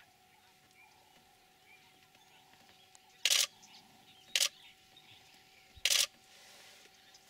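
Camera shutters firing in three short bursts about a second or so apart, in the second half, over a faint steady background hum.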